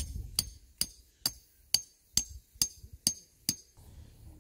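A hammer driving a metal tent peg: nine sharp, ringing metallic strikes, about two a second, that stop near the end.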